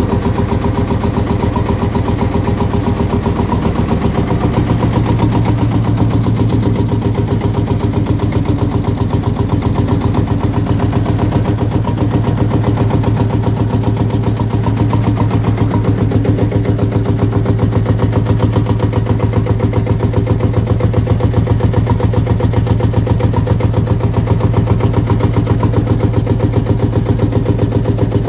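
1946 Series One Field Marshall tractor's single-cylinder two-stroke diesel engine idling with a steady, even beat of firing pulses; its low note fills out about four seconds in.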